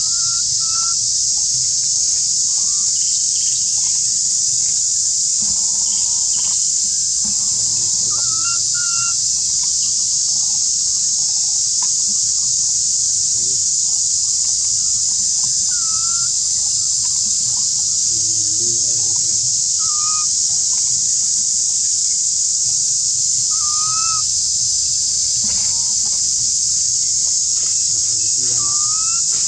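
Steady high-pitched drone of insects, with short rising chirp-like calls every few seconds.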